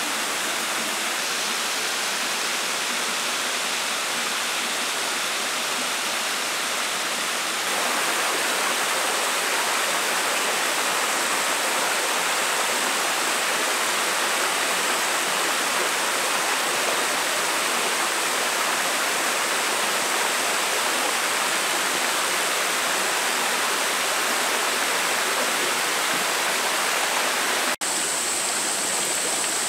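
Steady rush of a bush creek's running water and small falls over sandstone rock pools. It steps a little louder about a quarter of the way in and breaks off for an instant near the end.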